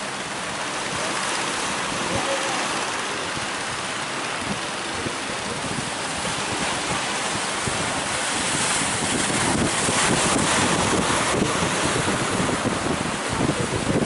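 Surf and wind rushing, with wind buffeting the microphone; the wash grows louder about eight seconds in.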